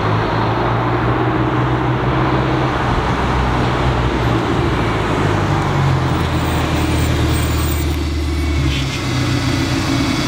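A pickup truck's engine running as it drives across the pavement and pulls up close, with a steady low hum and tyre noise; the low hum changes a little before the end as it stops.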